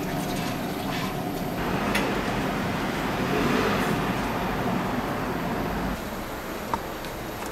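Steady rushing roar of restaurant kitchen background noise, with a deeper rumble that swells for a few seconds in the middle and drops away suddenly near the end, leaving a quieter steady hum; one sharp click near the end.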